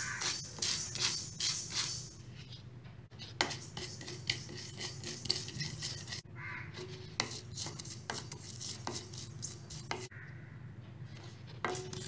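Wooden spatula stirring and scraping dry whole spice seeds around a hot steel kadhai as they are dry-roasted, the seeds rattling and rustling on the metal. The strokes are quick and regular for about the first two seconds, then come as sparser separate scrapes.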